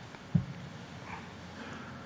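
Quiet room tone with one brief low thump about a third of a second in.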